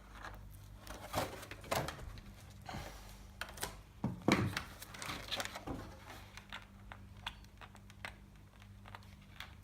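Handling of plastic armour parts and their protective film: scattered crinkles, rustles and light knocks, with a low steady hum beneath.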